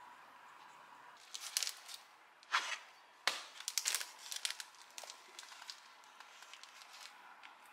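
Clear plastic print sleeves and a stiff cardboard mailer being handled: crinkling and rustling in several bursts, with two sharper snaps a little after two and three seconds in.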